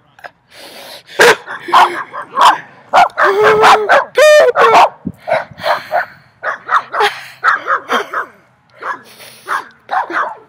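Several dogs barking loudly in a rapid string of short barks.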